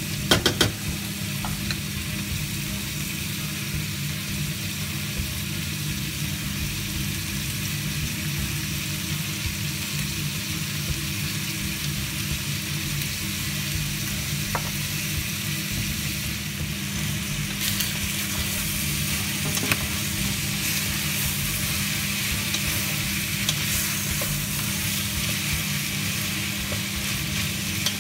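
Cubes of pork belly with onion and garlic sizzling as they fry in a stainless steel pot, stirred with a wooden spoon. There are a few sharp knocks of the spoon on the pot right at the start, and the sizzle grows stronger a little past halfway.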